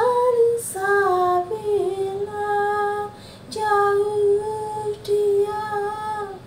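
A woman singing unaccompanied, holding about five long notes of fairly level pitch, each broken off by a short breath.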